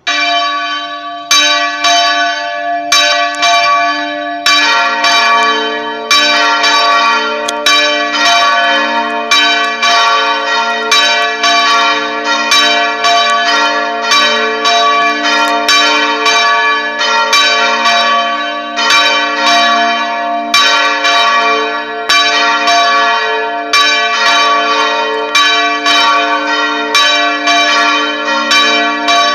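Two church bells ringing in a bell tower. One bell strikes alone at first; about four seconds in, a second, lower-pitched bell joins, and the two then sound in alternation, each stroke ringing on into the next.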